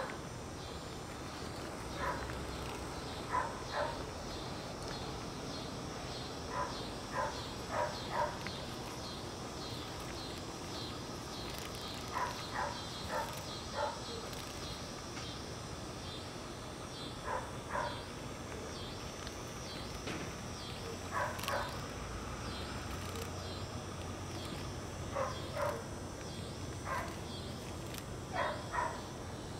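A dog barking in short runs of two to four barks every few seconds, over a steady, high, evenly pulsing insect chorus.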